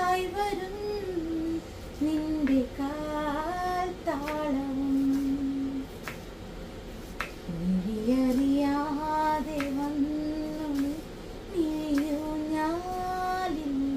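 A woman singing a slow melody on her own, without accompaniment, holding long notes.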